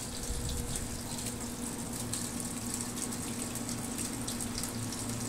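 Rainwater pouring and splashing off a roof in heavy storm rain: a steady rushing spatter. A faint steady hum runs underneath.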